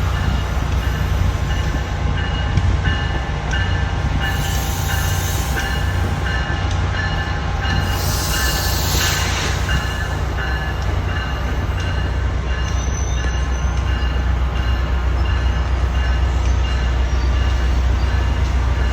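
Commuter train idling with a steady deep engine rumble and a constant whine above it. Air hisses in two bursts, about four and eight seconds in.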